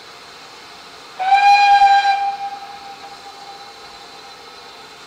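GWR steam tank locomotive's whistle: one blast on a single steady note, starting about a second in, loud for about a second and then fading away.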